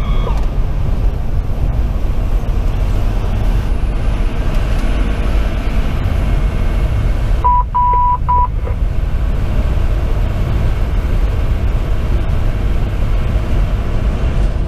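Inside the cab of a 2010 Pierce Velocity fire engine with a Detroit Series 60 diesel, driving at road speed: a steady, loud, low engine and road rumble. About halfway through, three short high beeps sound in quick succession.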